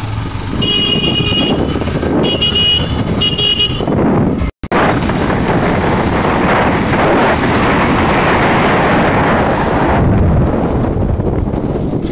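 Motorcycle riding at speed along a dirt track: engine and wind noise, with three short horn beeps in the first few seconds. After a brief dropout the rushing noise grows louder, then eases near the end.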